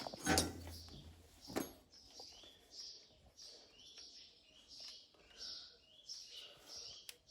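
A small bird chirping over and over, about two short chirps a second, with a few sharp knocks in the first two seconds.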